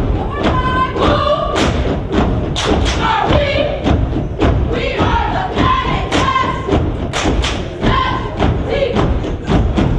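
Step team stomping and clapping in a driving rhythm, about two hits a second, while chanting together in unison.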